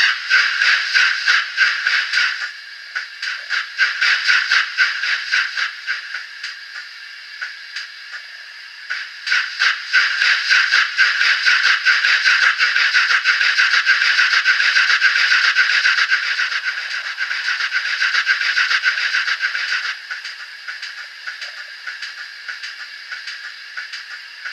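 Built-in DCC sound decoder of a Graham Farish N gauge Castle class model steam locomotive, playing a rapid steam exhaust beat through its small speaker, thin and with no bass. The beat drops quieter a few seconds in, comes back louder about nine seconds in, and falls away again near the end.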